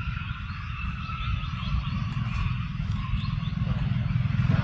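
A low, rapidly pulsing motor rumble, like a small engine, growing steadily louder, with faint wavering higher tones above it.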